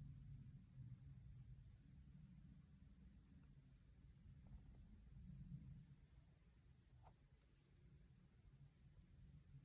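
Faint, steady high-pitched drone of insects over a low rumble, with no deer blow heard.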